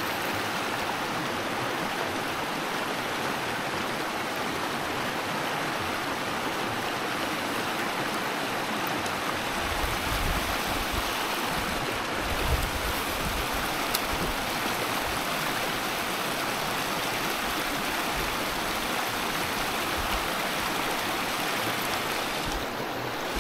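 The Rio Grande rushing over a shallow rocky riffle: a steady, even rush of flowing water.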